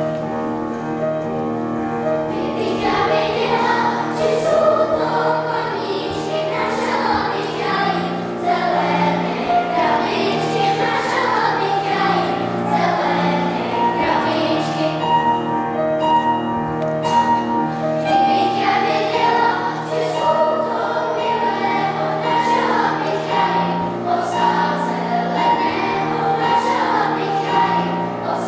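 Children's choir singing in Czech with piano accompaniment.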